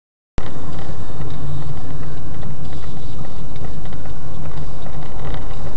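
Digital silence, then, about a third of a second in, loud steady in-car driving noise cuts in abruptly as a dash-cam recording: a low engine and road rumble from a moving car.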